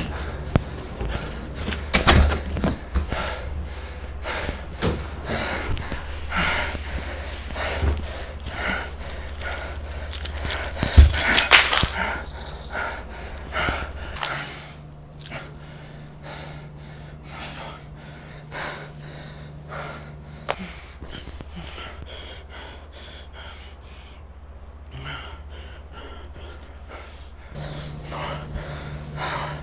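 A person's gasping breaths over many short sharp knocks, with a steady low hum underneath.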